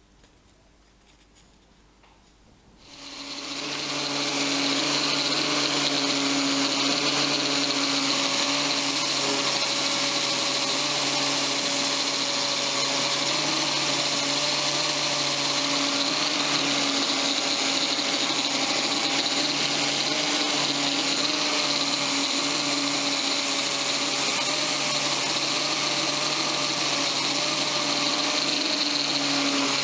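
Electric random-orbital sander, held upside down, starting up about three seconds in and then running steadily at constant speed while a fumed oak block is pressed against its sanding pad.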